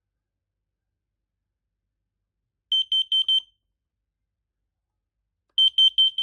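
X-Sense XC04-WX carbon monoxide alarm sounding high-pitched beeps in groups of four, the carbon monoxide alarm pattern: one group of four quick beeps a little before halfway, and another starting near the end.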